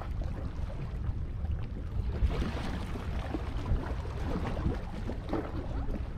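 Wind buffeting the microphone in a steady low rumble over lapping water, with scattered small splashes and ticks.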